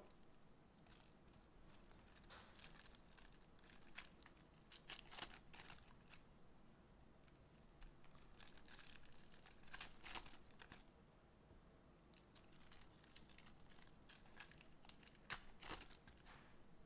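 Faint crinkling and tearing of trading-card pack wrappers being ripped open, in scattered short rustles.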